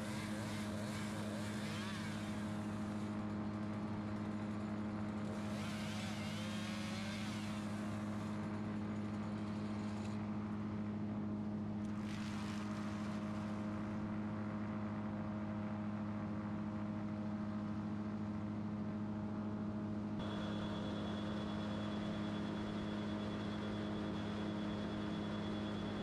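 An engine running steadily, with a chainsaw revving and cutting through branches in several bursts in the first half. A faint high whine comes in about twenty seconds in.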